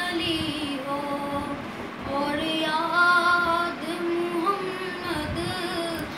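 A boy singing a naat (Urdu devotional song) solo, holding long notes that waver and slide in pitch.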